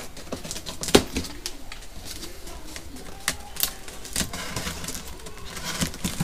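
Utility knife cutting through packing tape on a cardboard box, with scattered clicks, scrapes and cardboard handling noises; a sharp knock comes about a second in.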